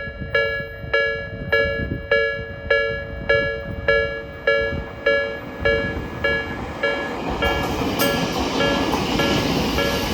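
Japanese level-crossing warning bell clanging steadily, a little under two strikes a second. A Tokyo Metro 8000 series train approaches in the second half: its running noise swells and wheel clicks over rail joints come in near the end, partly covering the bell.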